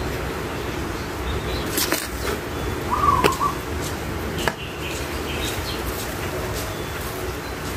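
Steady outdoor background with a few sharp clicks as potting soil and a small hand tool are handled at a plant pot, and a short bird chirp about three seconds in.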